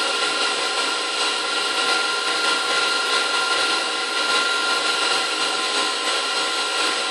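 KitchenAid 6-quart bowl-lift stand mixer running steadily, its wire whip beating egg whites: an even motor whine with several steady tones.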